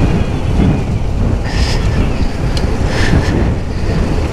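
Dual-sport motorcycle engine running at a steady pace, with wind buffeting the microphone.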